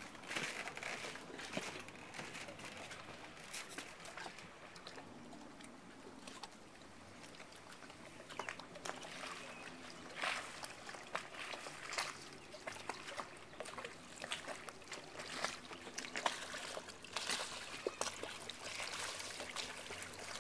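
Water lapping and trickling against a small boat, with scattered light clicks and knocks.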